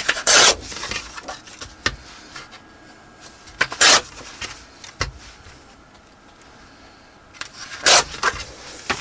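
Paper being handled on a work table: three short, loud rustles, about a second in, about four seconds in and near the end, with small taps and clicks between them.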